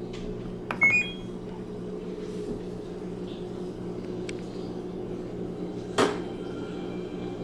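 LG WM3050CW front-load washer's start/pause button pressed: a click and a short run of electronic beeps stepping upward about a second in, over a steady low hum. A single loud clunk about six seconds in.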